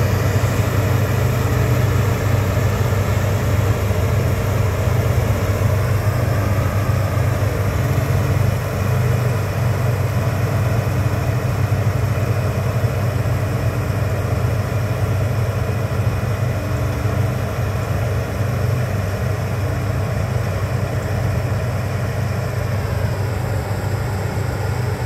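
A vehicle engine idling steadily, a low hum that barely changes.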